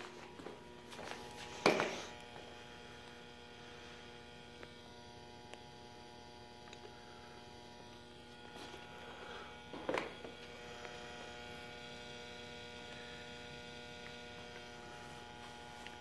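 Steady electrical hum, a buzz made of several evenly spaced tones, with two short knocks, about two seconds in and near ten seconds.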